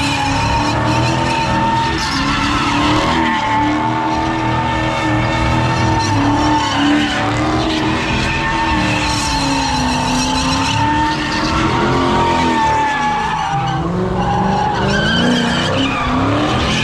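A car's tyres squealing without a break as it drifts, with its engine running underneath; the squeal's pitch wavers slightly up and down.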